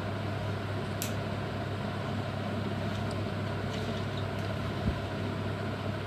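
Steady mechanical background hum with a strong low drone, broken by a light click about a second in and a soft low thump near the end.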